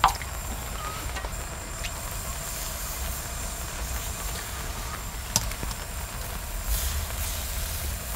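Bone-in beef rib pieces set down on a cast-iron cauldron-lid griddle: a sharp clack right at the start and another about five seconds in, with fainter taps between. A steady low rumble runs underneath.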